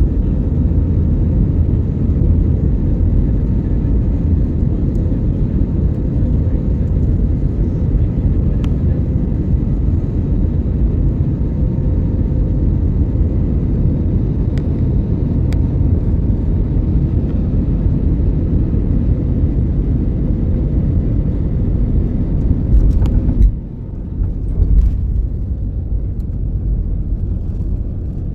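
Airliner cabin noise: a steady, loud rumble of the jet engines and airflow with a faint steady whine. About 23 seconds in the whine drops out and the rumble dips sharply, then comes back with a few knocks and thumps.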